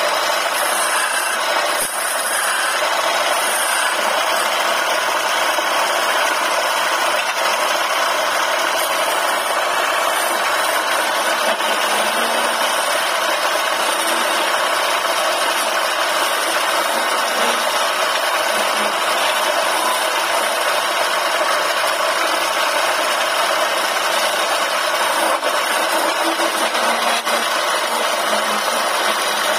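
Wood lathe running while a hand-held turning chisel cuts into a spinning wooden spindle: a steady hiss of wood being shaved away, with no breaks.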